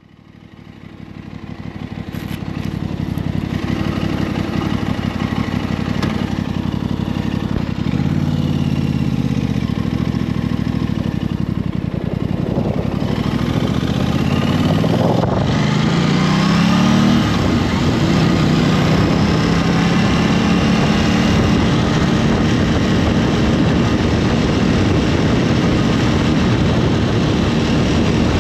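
Aprilia RS 660's parallel-twin engine running while riding, swelling up over the first few seconds. Its revs sag about eight seconds in, climb steeply from about twelve to fifteen seconds, dip at a gear change, then rise gently and hold steady.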